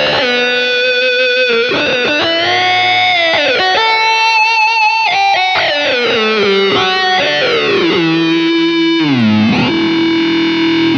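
Electric guitar through an EarthQuaker Devices Data Corrupter PLL synth/harmonizer pedal on its glide setting, giving a buzzy, harmonic-rich synth tone. The notes slide in pitch between held tones, with several downward glides, the lowest settling near the end.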